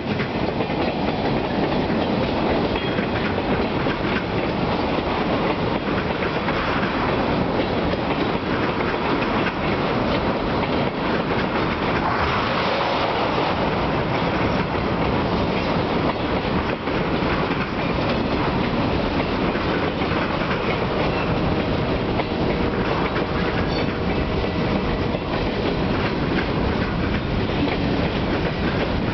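Empty tank cars and covered hopper cars of a freight train rolling past, a steady rumble with steel wheels clacking over the rail joints.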